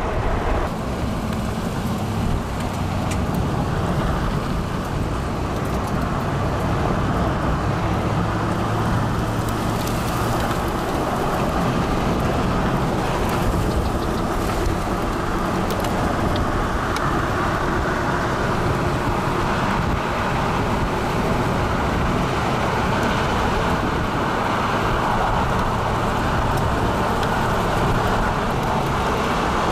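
Steady rushing noise of a vehicle on the move: tyre and wind noise, even throughout with no distinct events.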